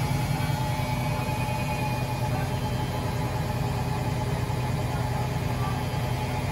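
LG front-loading washing machine running with a steady low hum that holds one pitch throughout.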